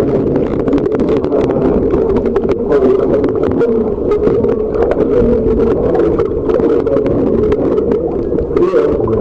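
Rushing underground stream making a steady, loud roar that echoes in the cave, with scattered small clicks and knocks over it.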